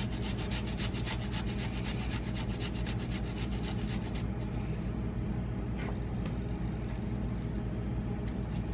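Fresh garlic being worked by hand: a fast, rapid scraping rasp for about four seconds, then softer rubbing with a few small clicks. A steady low hum sits underneath.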